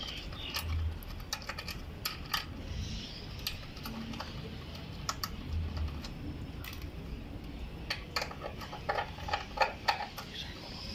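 Irregular small clicks and taps of hands working plastic wire connectors and small metal parts in a motorcycle's wiring box, fitting and tightening a wire terminal, busier near the end.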